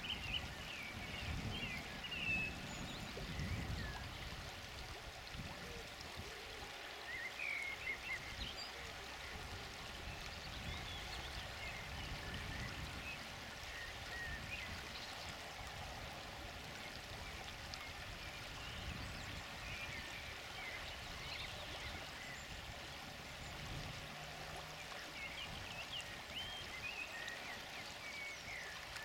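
Shallow river water running steadily over gravel, with scattered short high chirps above it. A few low rumbles rise out of it, the loudest about two seconds in and again around eight seconds.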